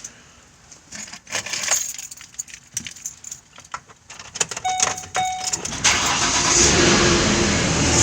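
Keys jangling and clicking at the ignition, then two short beeps. About six seconds in, the 2010 Ford Explorer's 4.0 L V6 starts and runs steadily; this is its first start after a heater hose replacement.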